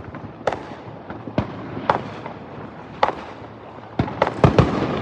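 Fireworks exploding: sharp bangs about every second, then a quick run of several bangs near the end, over a crackling background of further bursts.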